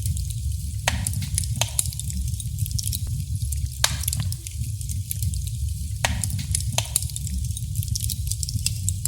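Wood fire burning in a fireplace: a steady low rumble and hiss of the flames, with irregular sharp crackles and pops from the burning wood.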